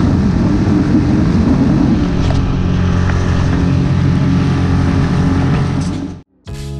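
A solo skiff's motor running steadily at speed, with water and wind rushing past the hull. It cuts off abruptly about six seconds in, and guitar music starts just before the end.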